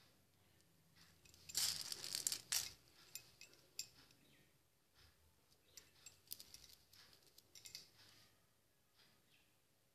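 Small plastic beads rattling and clicking against a steel plate as a threaded needle is dipped into the pile to pick them up. There is a short burst of rattling about two seconds in, then scattered light clicks.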